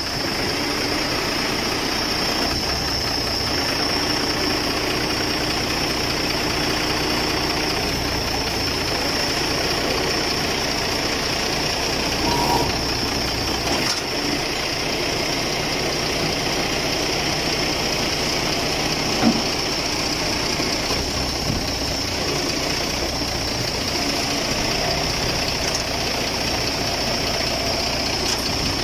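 Crane truck's engine idling steadily, with a steady high-pitched whine over it and one sharp knock about two-thirds of the way through.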